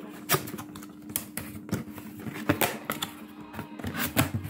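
Cardboard beer carton being torn and opened by hand: irregular sharp snaps, clicks and scrapes of the card flaps and perforated tab, with the cans inside knocked as the box is handled.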